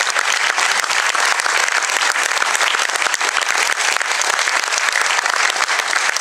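Audience applauding steadily: many hands clapping at once, a dense unbroken patter.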